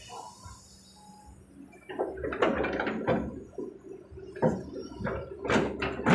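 Earth and stones pouring from an excavator bucket into a dump truck bed, in rough rushes with several sharp knocks, starting about two seconds in and growing louder near the end.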